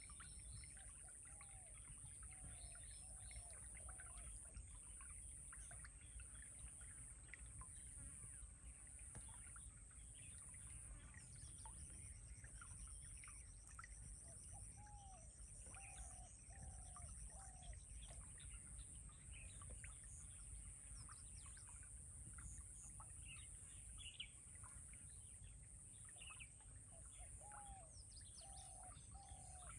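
Birds calling faintly: scattered short chirps, and three times a run of three or four short, low, falling notes, over a low steady rumble.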